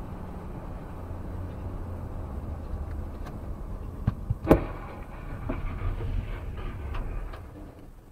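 Road rumble inside a moving car, then a car crash about four and a half seconds in: a sharp knock, a loud bang of the collision, and clattering of debris for a couple of seconds after.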